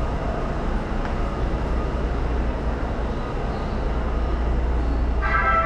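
Steady hum and rumble of a Toei Shinjuku Line subway train standing at an underground platform with its doors open. Near the end a chime melody starts up.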